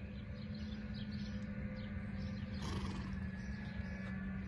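A steady low hum over a low rumble, with small birds chirping now and then.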